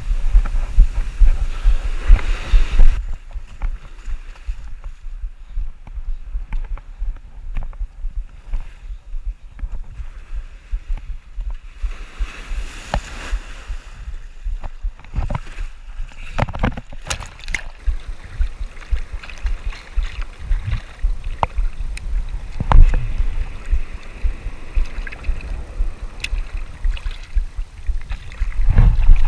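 Water sloshing and knocking around a chest-mounted camera while fishing in the ocean, heard as a muffled low rumble for the first few seconds, then softer thuds and scattered clicks.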